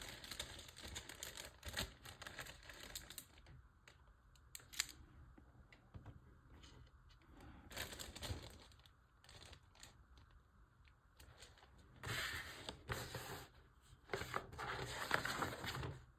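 Plastic packaging crinkling and rustling in irregular bursts as it is handled and torn open.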